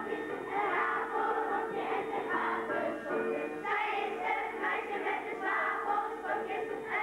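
A group of children singing a song together as a choir, over steady instrumental accompaniment.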